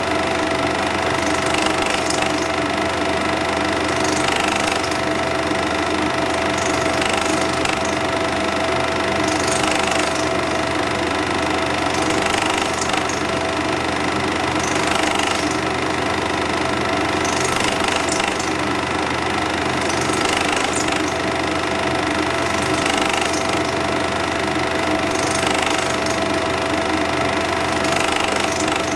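8mm cine film projector running steadily, with a faint swish repeating about every two and a half seconds.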